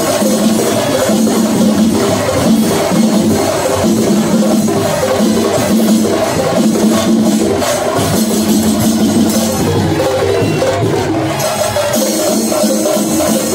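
Sinkari melam ensemble playing loudly: chenda drums beaten in a fast, dense rhythm with clashing cymbals, and a repeated pitched tune running over the beat. The texture shifts near the end.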